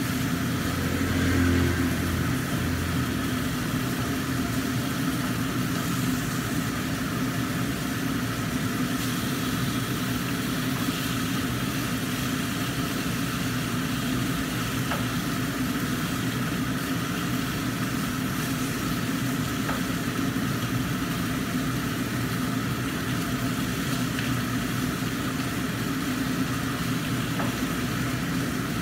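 Mackerel frying in oil in a lidded wok, a sizzle under a steady mechanical hum.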